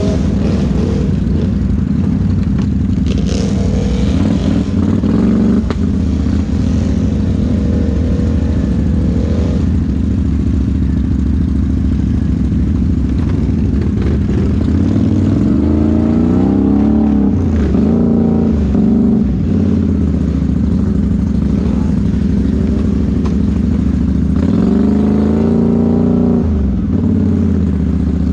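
ATV engines running at a steady idle, with the revs rising and falling twice, once in the middle and once near the end, as the quads are throttled up.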